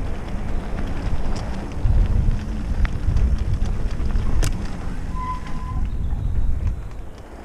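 Mountain bike riding fast down dirt singletrack: heavy wind buffeting on the camera microphone over the tyres rolling on the trail, with a few sharp knocks and rattles from the bike over bumps, the sharpest about four and a half seconds in. A short, steady whistle-like note sounds a little after five seconds.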